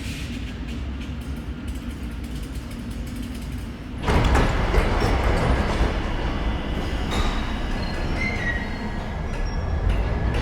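Underground metro train: a low rumble with scattered ticks and clicks, then, about four seconds in, the noise of a train rushing through at once becomes much louder, with brief high wheel squeals.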